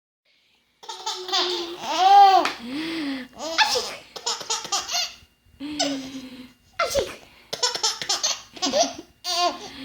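Infant boy of almost seven months giggling and laughing in a string of short bursts, some rising and falling into high squeals.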